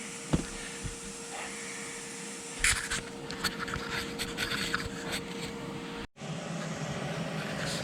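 Steady workshop hum with a knock, a rustle of handling and scattered light clicks; the sound drops out for an instant about six seconds in.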